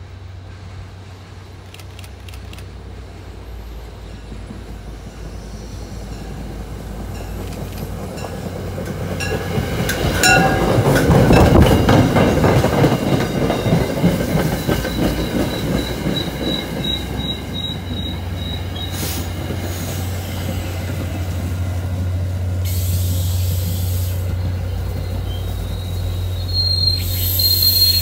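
MBTA commuter rail train approaching and passing close by. Its diesel locomotive's rumble builds to its loudest about ten seconds in. The coaches then roll past with a steady low hum, wheel clatter and a thin high-pitched wheel squeal that comes and goes.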